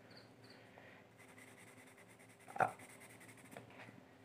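Faint handling and rubbing sounds of pencils on paper, with one sharp tap about two and a half seconds in and a couple of lighter clicks near the end.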